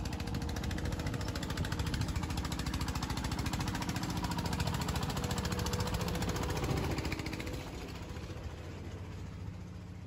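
A small farm tractor's engine chugging with a fast, jackhammer-like knock as it passes close by, dying away after about seven and a half seconds.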